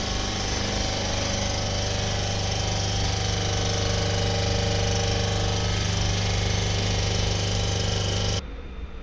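Vacuum pump of a leak tester running steadily with a deep hum, pulling vacuum on the test chamber, then cutting off abruptly near the end as the set vacuum is reached and the holding time begins.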